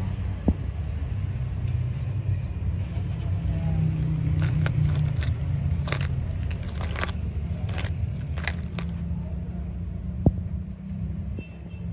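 Steady low rumble of a motor vehicle engine running nearby. Over it come scattered light clicks and rustles from the potted plants being handled, busiest in the middle, and two sharp single clicks.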